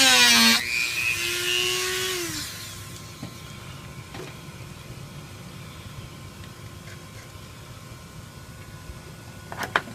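Dremel rotary tool with a cutting bit whining at high speed, its pitch wavering as it cuts the hole wider. It is switched off about half a second in and winds down over the next two seconds. Then only faint handling sounds follow, with a couple of sharp clicks near the end.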